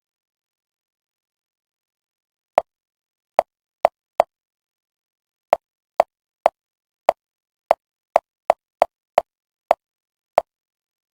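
Fifteen short, sharp, identical clicks at uneven intervals, starting about two and a half seconds in, against complete silence.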